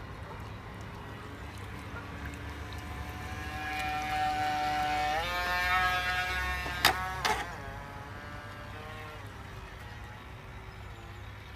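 Radio-controlled model Venetian launch's motor running with a steady pitched tone that grows louder, steps up in pitch about five seconds in as the boat speeds up, then fades away. Two sharp clicks come a little after the pitch rise.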